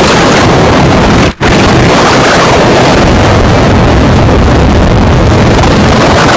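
Live turntable noise improvisation played through a DJ mixer: a loud, dense wall of rumbling, hissing noise, with a sudden momentary cut-out about a second and a half in.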